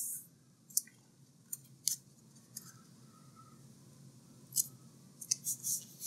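Sheets of paper being handled on a wooden table: a short papery slide at the start, a few light taps and rustles, then a run of crisp rustles near the end as hands press an inked printing plate onto black paper.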